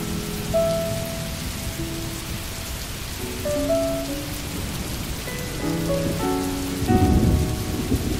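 Steady rain ambience under gentle music of slow, held notes, with a louder low rumble near the end.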